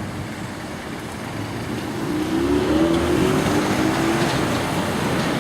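A motor vehicle's engine and road noise grow louder about two seconds in, with an engine tone that rises slightly and then holds.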